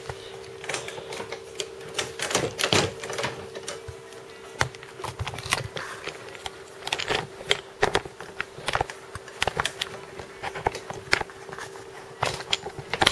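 Handling noise of a camera being carried and fumbled while it records by accident: irregular clicks and knocks from fingers and casing over a steady hum.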